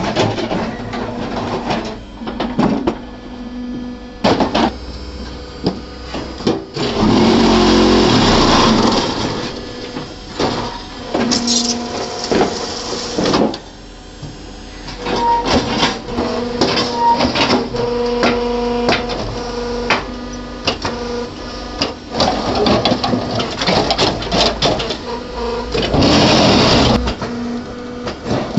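Hydraulic concrete block-making machine running: a steady hum from its motors and hydraulic pump under repeated clanks and knocks of steel parts, with stretches of loud rattling about a quarter of the way in and again near the end.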